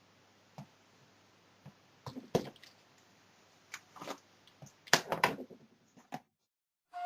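Scattered clicks, taps and rustles from handling a hairbrush and curlers while setting hair, with a quick cluster of louder knocks about five seconds in.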